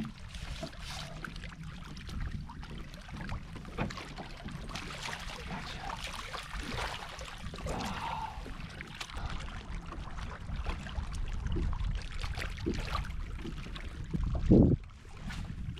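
Wind on the microphone and water sloshing against a kayak hull, with scattered small knocks of gear handling and one louder, short low thump near the end.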